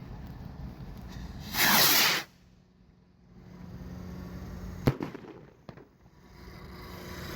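Street Fighter firework rocket launching with a loud hiss of about half a second, then a single sharp bang as it bursts some three seconds later, followed by a smaller pop.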